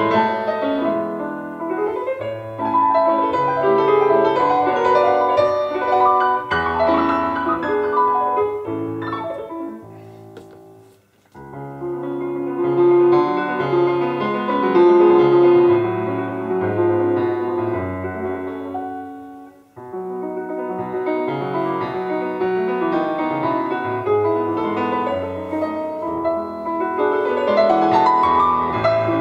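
Solo piano playing a march, with two brief pauses: one near the middle and one about two-thirds of the way through.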